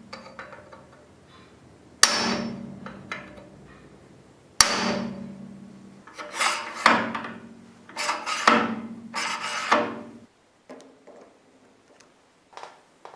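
Two hammer blows on a punch set against the rim of the bottle jack's steel tube, each striking sharply and ringing as it fades. They are followed by several seconds of rubbing and scraping, then a few faint clicks near the end.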